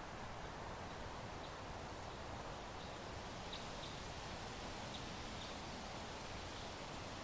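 Soft, steady wind noise, with a few faint, short, high chirps scattered through it.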